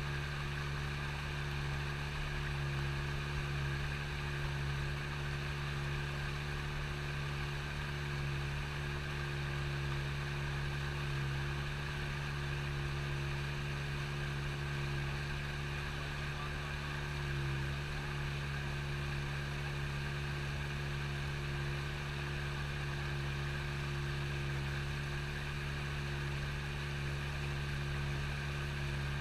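A small boat's motor running at a constant speed: a steady drone that holds one pitch throughout.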